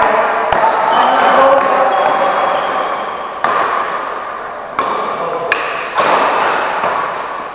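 Badminton rackets striking a shuttlecock in a rally: one sharp hit about half a second in, then four more in quicker succession in the second half, each echoing in a large hall.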